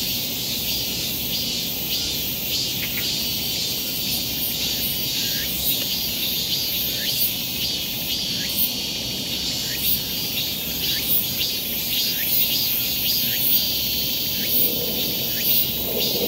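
Steady outdoor chorus of insects, high-pitched and unbroken, with short chirps recurring about every second, over a low even background noise.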